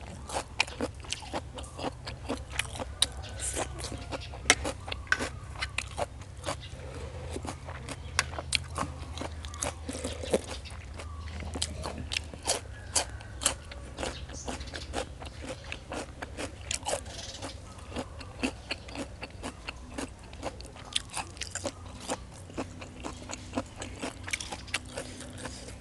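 Close-miked chewing of crisp beef tripe salad and raw vegetables: many sharp crunches and bites, one after another, with wet chewing sounds between them.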